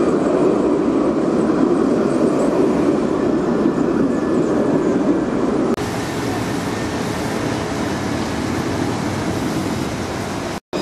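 Street tram running past close by, a steady rolling and running noise. About halfway through the sound drops abruptly to a quieter, more distant tram running across an open square, with a brief moment of silence near the end.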